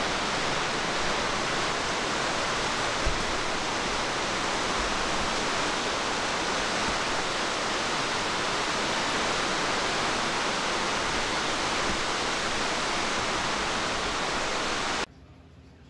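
Heavy rain falling on a corrugated metal roof, a steady loud hiss that cuts off suddenly near the end.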